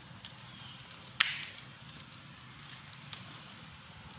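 A single sharp click about a second in, with two fainter ticks before and after it, over faint high chirps in the background.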